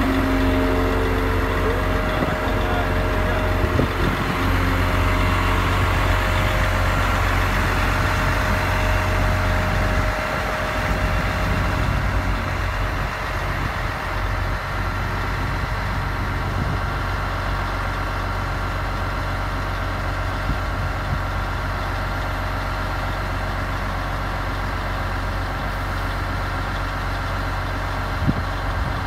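DAF XF105 truck's six-cylinder diesel running steadily at idle while it drives the hooklift's hydraulic pump, with a higher steady tone over it for the first few seconds. A single small knock comes near the end.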